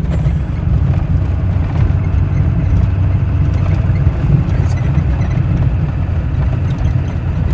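Vehicle driving, a steady low rumble of engine and road noise with an irregular, rattly texture as if over a rough surface.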